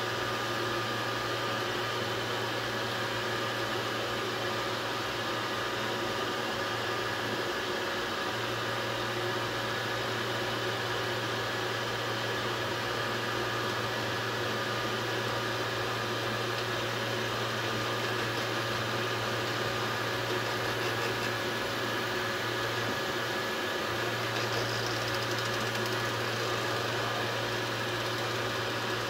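Dual-extruder 3D printer running: a steady whir of its fans and motors with a low hum that briefly drops out about seven seconds in and again near twenty-three seconds.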